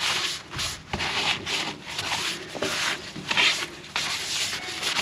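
A rag damp with mineral spirits wiped back and forth over sanded fiberglass, a rough rubbing swish about twice a second, clearing away the sanding dust.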